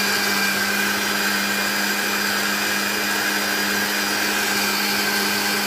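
Electric countertop blender running at full speed, blending a strawberry milkshake: a steady motor hum with a whine above it and the churning of the liquid in the jug.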